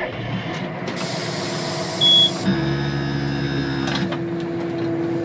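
A vehicle engine running with a steady hum, a hissing rush in the first half and one short, loud, high beep about two seconds in.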